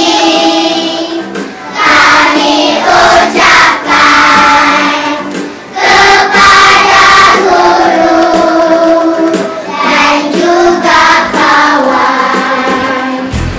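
A group of children singing a song together, with music.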